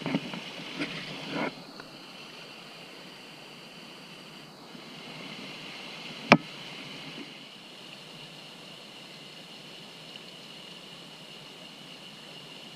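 Mountain stream running steadily, with a few short rustling knocks in the first second and a half and one sharp click about six seconds in.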